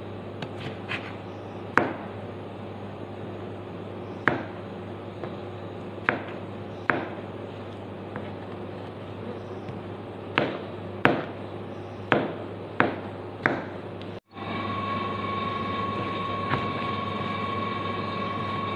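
Kitchen knife cutting a tomato on a wooden chopping board: about a dozen sharp knocks at uneven intervals over a low steady hum. About three-quarters of the way through, the sound cuts off abruptly and is replaced by a louder, steady humming drone with a whine in it.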